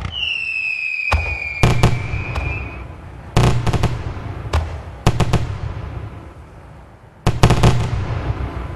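Fireworks going off: a whistle that slides slightly down in pitch over the first three seconds, then sharp bangs in several groups, each followed by a fading rumble. The loudest cluster comes near the end.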